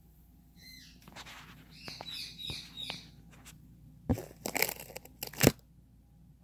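Pet parrot calling: a run of quick whistled chirps, then several loud, harsh screeches near the end.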